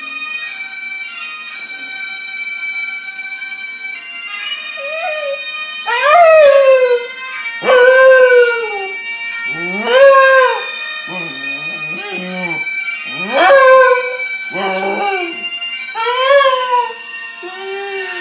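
A young Scottish Terrier howling along to bagpipe music playing from a phone speaker: a series of drawn-out howls, each rising then falling in pitch, starting about five seconds in and much louder than the steady bagpipe drone underneath.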